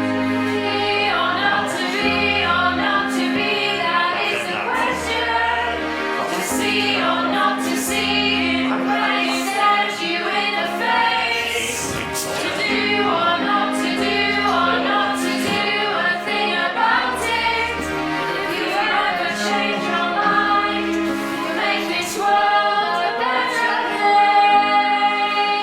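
Music: choral singing in harmony over held low bass notes that change every second or two.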